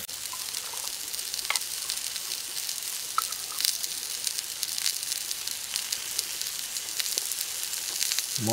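Meat sizzling on a hot stone: a steady frying hiss with scattered small pops and crackles.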